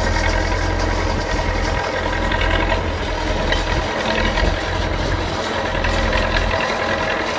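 Belarus 825 tractor's four-cylinder diesel engine running steadily as it pulls a loaded cassava trailer at low speed.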